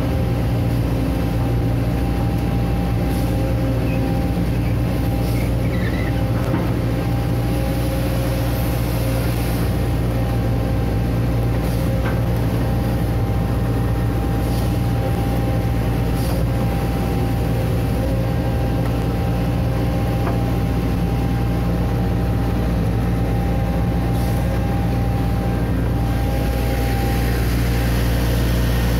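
Diesel engine of a Hitachi Zaxis 130 amphibious excavator running steadily under work, a constant low drone with a few faint clicks.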